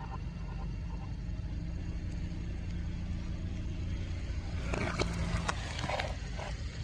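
A car's engine runs low and steady as it rolls, and about five seconds in a burst of cracks and crunches comes as a tyre crushes something under it.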